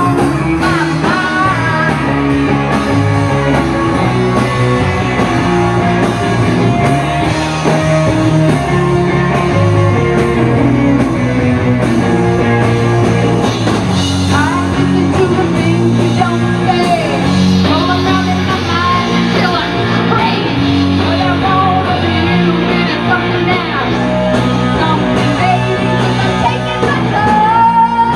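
Live rock band playing, a woman singing lead over electric bass and electric guitar, loud and continuous.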